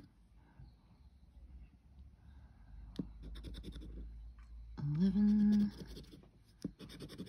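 A round scratcher token scraping the latex coating off a paper scratchcard in quick back-and-forth strokes, in two bursts. About five seconds in, a person's voice gives a short held hum.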